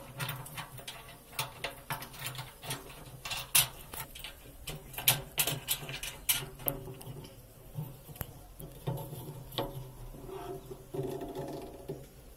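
Irregular light clicks and knocks as a rubber drive belt is worked by hand onto the pulleys of a honey extractor, over a low steady hum.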